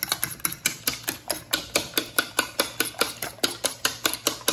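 A fork beating eggs in a bowl, its tines tapping the bowl's side in a quick, even rhythm of about five taps a second as the yolks and whites are mixed.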